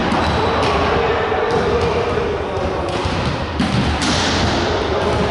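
Volleyball being hit and thudding during a rally in a large gym hall: several sharp ball strikes a second or so apart, over a steady background of players' voices and movement.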